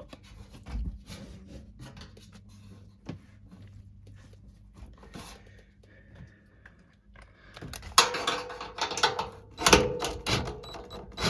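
Light clicks and knocks of metal parts being handled as a blower motor's mounting bracket and screws are lined up, turning into busier, louder clatter about eight seconds in.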